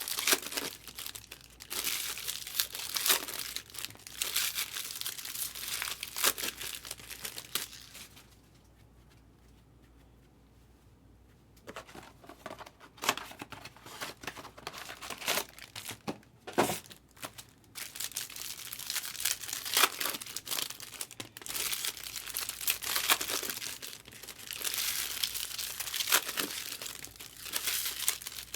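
Packs of baseball trading cards being torn open, their wrappers crinkling and crumpling as the cards are handled, in bursts with a short lull about a third of the way through.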